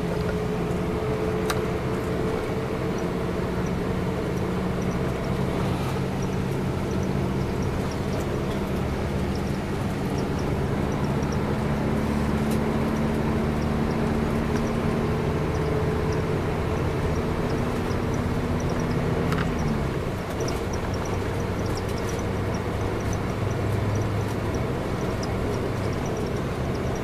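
Bus engine and road noise heard from inside the passenger cabin, cruising steadily on a highway. The engine's hum drops to a lower pitch about twenty seconds in.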